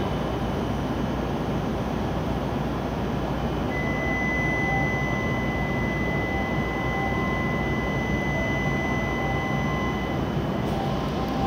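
Steady hum of a W7 series Shinkansen train standing at the platform with its on-board equipment running. A steady high whine comes in about four seconds in and stops about six seconds later.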